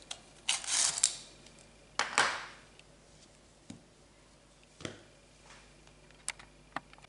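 Handling noise from a crocheted cord panel and a tape measure being moved on a tabletop: two short rustling swishes in the first few seconds, then a few scattered light clicks and taps.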